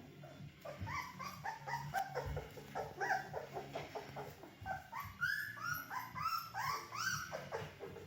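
Young Bernedoodle puppies, three weeks old, whining and squeaking in a quick series of short, high, arching calls, several overlapping, most frequent in the second half.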